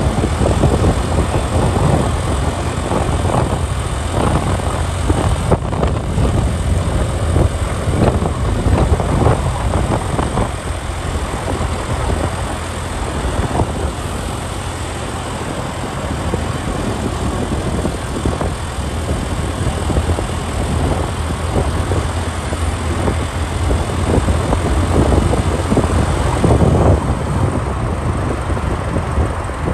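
Riding on a moving motorcycle in city traffic: a steady rumble of bike and road, with irregular gusts of wind buffeting the microphone.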